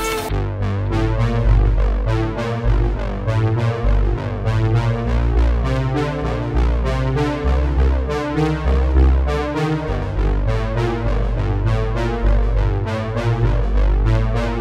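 Background music: a synthesizer keyboard playing repeated notes over a steady low bass line.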